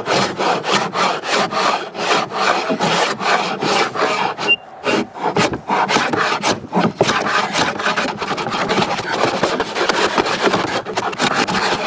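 Hand-tool strokes rasping back and forth across the surface of a bur oak slab to smooth off router marks, at about three strokes a second, with a brief pause about four and a half seconds in.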